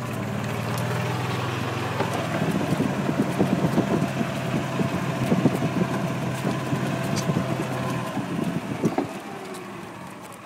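Golf cart driving over turf: a steady low motor hum with the body rattling over the bumps, the hum cutting off about eight seconds in as the cart stops.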